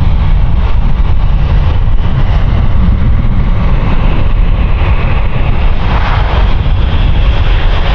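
Boeing 737-800's CFM56-7B jet engines as the airliner touches down and rolls out: a loud, steady rumble that rises about six seconds in as reverse thrust is applied.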